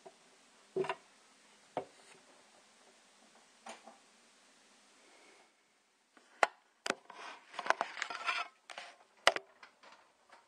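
Objects being handled: a few separate sharp knocks, then, about two-thirds of the way in, a quick run of clicks, knocks and rattles lasting about three seconds.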